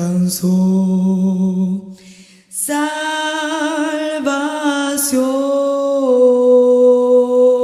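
Women's vocal quartet singing a hymn a cappella in Spanish. A held note breaks off about two seconds in for a short breath, then the voices come back on "alcanzó" and hold a long sustained note.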